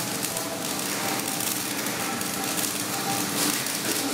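Flux-cored arc welding on carbon steel plate: the welding arc running steadily throughout.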